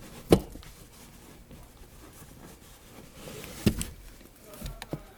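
Handling noises as the Pathfinder's factory jack and tools are taken out of their stowage: a sharp knock about a third of a second in, a short rustle, then another knock and two small clicks near the end.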